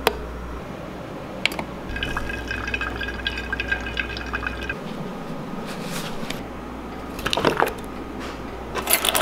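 Coffee maker brewing, pouring a thin stream of coffee into a stainless steel tumbler, with a steady hum from the machine that stops about halfway through. Near the end come a couple of short, louder rustling knocks.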